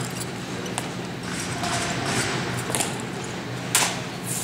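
Drill rifles being spun and caught in an exhibition drill routine: a few sharp clacks scattered through, the loudest near the end, over a steady low hum of the hall.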